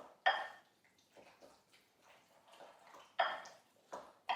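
Spoon stirring chunks of chicken through a wet coconut-milk and lemon marinade in a bowl: a string of short squelches and scrapes, a few of them sharper, about a second apart.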